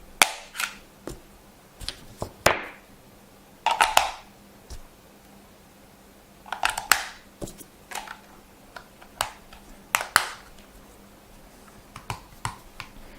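Godox X1C flash transmitter being switched on and handled: a string of small plastic clicks from its switch and buttons, irregularly spaced, with a few short handling rubs in between.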